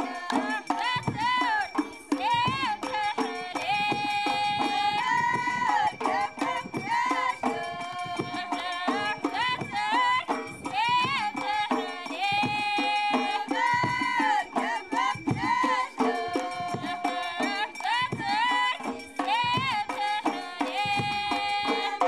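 Traditional folk music as a soundtrack: a wavering, ornamented melody of held notes over steady percussion.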